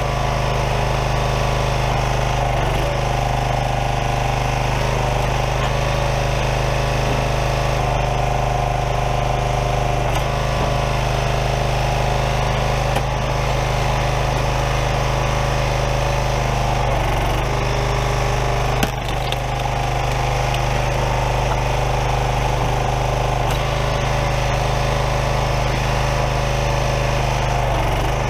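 Small gas engine of a Craftsman 27-ton log splitter running steadily while its hydraulic ram pushes through a large firewood round, with one sharp knock about 19 seconds in.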